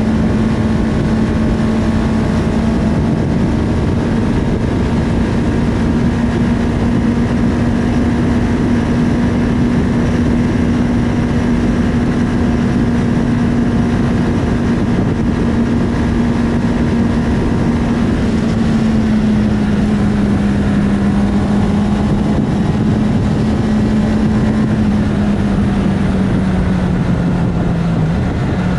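2019 Honda CB650R's inline-four engine with an Akrapovic titanium exhaust, running steadily at high road speed, heard from on board over heavy wind rush. Its pitch holds steady, dips a little about two thirds of the way in, and falls gradually near the end as the bike slows.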